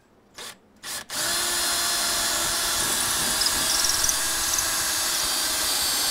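Power drill drilling a pilot hole into a door jamb at the hinge. The trigger is blipped twice briefly, then the drill runs steadily for about five seconds.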